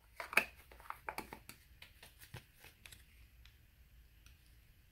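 Skincare jars and plastic sample sachets being handled: a run of light clicks and crinkles, busiest in the first three seconds, then a few faint ticks.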